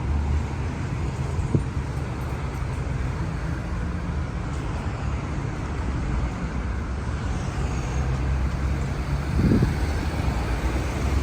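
Steady road traffic noise of cars running along a street, with a low engine hum throughout.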